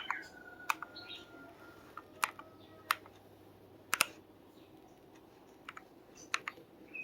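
Womier Star80 Ultra mechanical keyboard being typed on slowly: about seven single keystrokes, each a short sharp clack, spaced unevenly with pauses between them.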